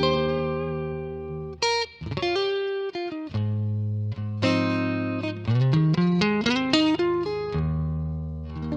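Clean electric guitar, a Fender Stratocaster played through a Kemper profile of a '57 Fender Bandmaster amp with its original cab. It rings out full chords, with single notes and a short rising run of notes between them.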